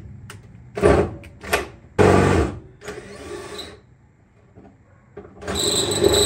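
A few short scraping and knocking bursts from metal parts being handled in the Jeep's tub, then about five seconds in a power drill starts running steadily with a high whine.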